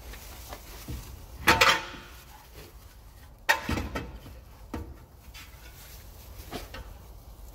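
Metal clanks and clinks as a BMW 750i front brake caliper is handled and fitted back over the disc: two sharp, ringing clanks about a second and a half and three and a half seconds in, then lighter knocks.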